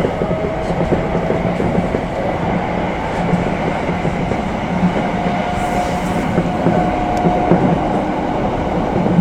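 Tobu commuter electric train running: a steady rumble of wheels on rail heard from on board, with scattered light clicks from the track. A faint steady-pitched whine comes and goes.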